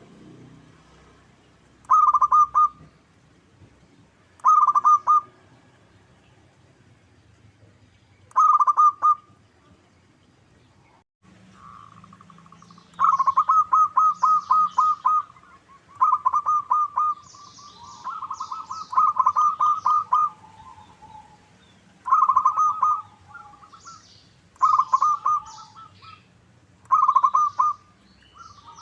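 Zebra dove (local perkutut) singing: repeated phrases of quick staccato cooing notes. The phrases are short and a few seconds apart at first, then longer and closer together from about halfway.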